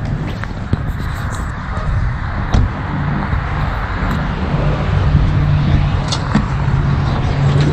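Steady outdoor road-traffic and vehicle noise, with a low steady engine-like hum joining about halfway through and a few light knocks.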